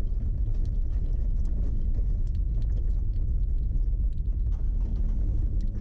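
Vehicle driving over an unpaved road: a steady low rumble with scattered light clicks.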